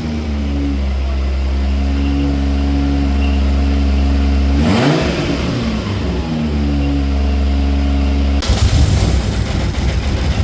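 BMW B58 turbocharged inline-six, swapped into an E24, running with a misfire, its plugs fouling from overfueling. The engine note swings briefly about halfway, and near the end it turns rough and uneven.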